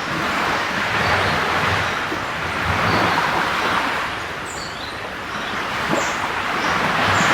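Sea waves washing onto a beach: a steady rushing surf that swells and eases every few seconds. Short, high bird chirps come through a few times over the surf.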